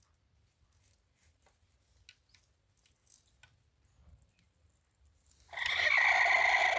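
Faint scattered clicks, then, about five and a half seconds in, a loud steady animal call lasting about a second and a half.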